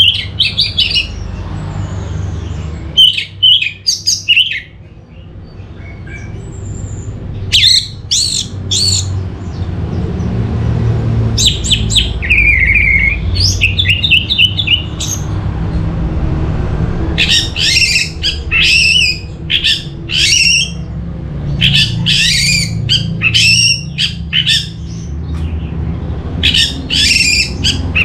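Orange-headed thrush singing: about seven bursts of quick, varied, rich phrases, each a second or more long, separated by short pauses. Under it runs a steady low rumble.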